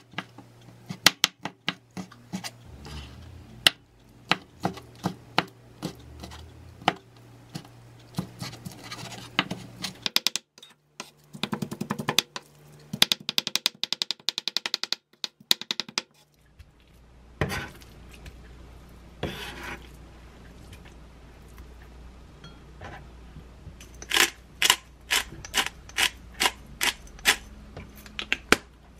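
Kitchen knife chopping and mincing raw shrimp on a wooden cutting board: separate chops at first, then a fast run of chops in the middle. Later come scattered knocks and a quick series of clicks.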